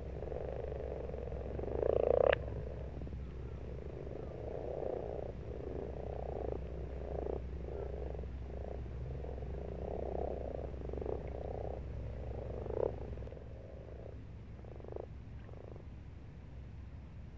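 Common frogs croaking in a pond: a dense chorus of short, low, overlapping croaks, with a louder one about two seconds in. The chorus thins to a few separate croaks in the last few seconds.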